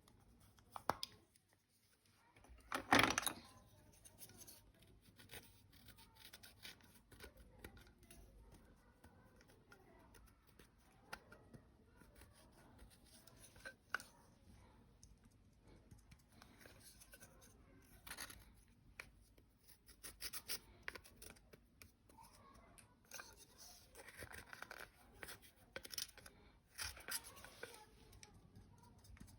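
Close-up handling sounds of slime being coloured with makeup: scattered small clicks, scrapes and rustles, with a louder scraping burst about three seconds in.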